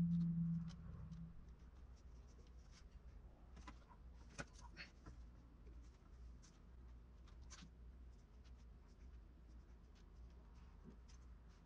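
Faint handling sounds of a clay sculpture being worked by hand: fingers pressing and smoothing modelling clay onto the dog's nose, with scattered light clicks and taps. A brief low hum in the first second is the loudest part.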